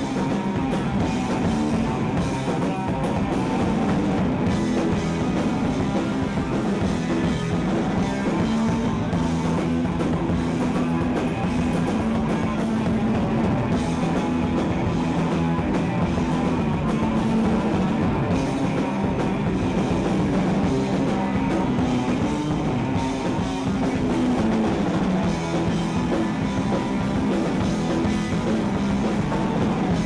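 Punk rock band playing live: electric guitars and bass over a drum kit.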